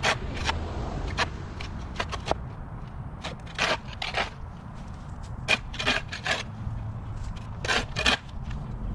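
Dry wood and brush being handled during yard clearing: irregular sharp snaps and cracks with scraping and rubbing, over a low steady rumble.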